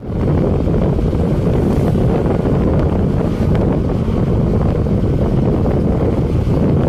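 Steady, loud wind buffeting the microphone of a camera riding on a moving motorcycle, with the bike's running noise blended in beneath it.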